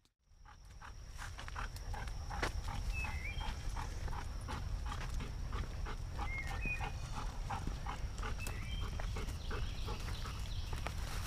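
Rhythmic crunching of footsteps and dogs' paws on a leaf-littered dirt trail, about three steps a second, over a low rumble of wind, with a few short bird chirps.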